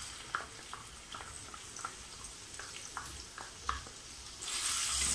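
Chopped ginger sizzling in hot oil in a pan, with a series of short sharp taps as a wooden spatula scrapes it off a bowl and knocks against the bowl and pan. The sizzle gets louder near the end.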